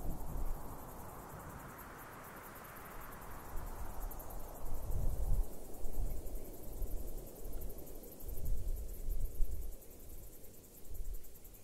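Low, irregular rumbling noise with a whooshing hiss that swells and fades over several seconds, like an outdoor ambience track.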